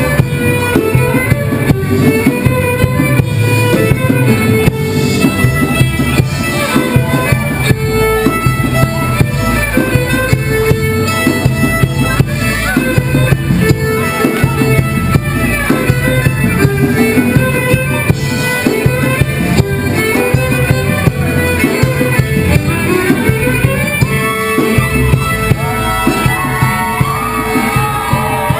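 Loud Greek folk dance music: a quick, busy melody line over a steady beat.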